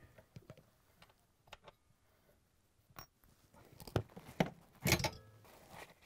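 Scattered small metallic clicks and scrapes as needle-nose pliers pull the locking pins and washers off a refrigerator compressor's rubber-grommet mounts: a sharp click about three seconds in and a cluster of clicks near the end.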